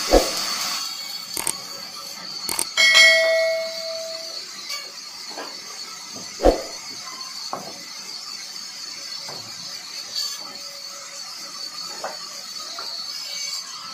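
Vertical band-saw sawmill running with a steady high whine as a log plank is fed through, with scattered knocks of wood on the steel table; the loudest is a sharp knock about six and a half seconds in. About three seconds in, a couple of clicks and a bell ding come from a subscribe-button sound effect.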